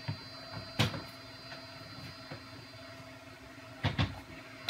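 Plastic knocks as a Bambu Lab AMS filament unit is handled and set down on top of a 3D printer: one sharp knock about a second in, then a few more close together near the end. A steady background hum of running machines sits under them.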